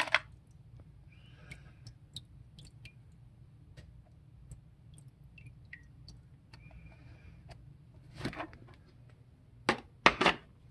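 A clear plastic container of screws, nuts and a spring, drained of Evapo-Rust rust remover: liquid drips and small ticks, with sharp clattering knocks at the start and several more near the end as the container and the loose metal parts are handled.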